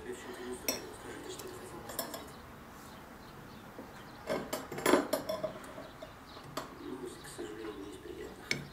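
Metal fork clinking and scraping on a china plate, with porcelain tableware knocking as it is handled: scattered short clinks, the loudest cluster about five seconds in.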